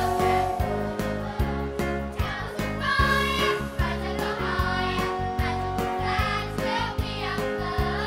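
Children's choir singing together over backing music with a steady beat.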